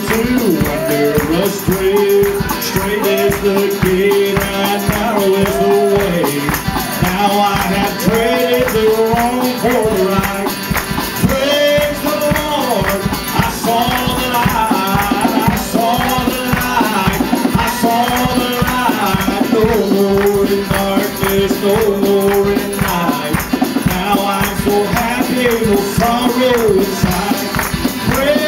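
Live gospel band music: strummed acoustic guitar and drums keeping a steady beat, with a shaker-like rattle and a wavering melody line over it.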